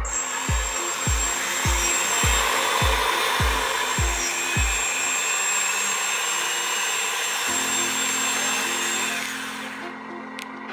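Background music with a steady kick-drum beat about twice a second that stops about halfway and gives way to sustained low tones. Under it is a steady whirring hiss from the RC bulldozer's electric drive, which drops away near the end.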